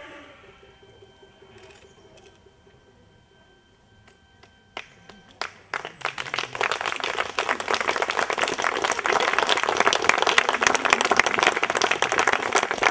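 Faint music tones dying away, then a few scattered claps about five seconds in that quickly swell into loud, sustained audience applause.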